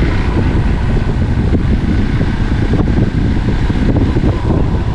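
Motorcycle being ridden, its engine running steadily under road and wind noise in a constant low rumble.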